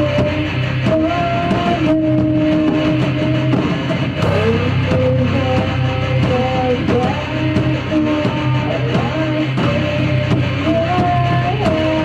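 Rock band playing live in rehearsal: distorted electric guitar, bass and drums, with a lead line of held notes that bend and slide from one pitch to the next.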